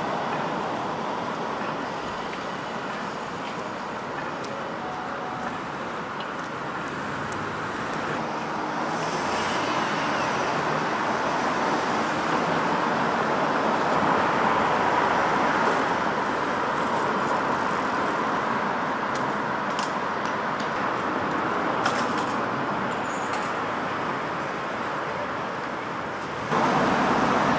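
City street traffic: cars driving past with a steady rush of tyre and engine noise that swells and fades, loudest in the middle. A few light clicks come near the end, and the level steps up suddenly just before it ends.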